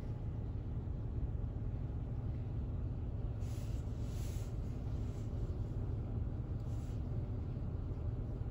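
Ryko SoftGloss MAXX 3 touch-free car wash heard from inside the car's cabin: a steady low rumble of the machine as soap and water spray against the car, with the hiss of the spray swelling briefly a few times.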